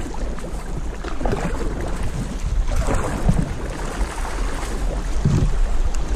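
Water rushing over rocks in a small river rapid as a canoe paddles through it, with wind buffeting the microphone.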